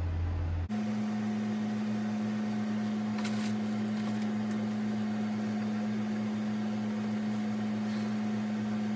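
Steady low electrical or mechanical hum, with no speech, that shifts abruptly to a higher steady pitch under a second in.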